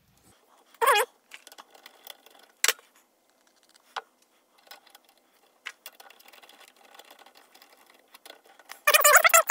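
Light metal clicks and taps as through-bolts are threaded into a starter motor's end housing and turned with a hex driver. There is a brief warbling squeak about a second in and a louder squeaky stretch near the end.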